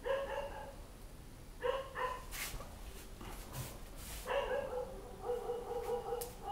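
Four short, high, steady-pitched animal calls, each under a second, with a few sharp clicks between them.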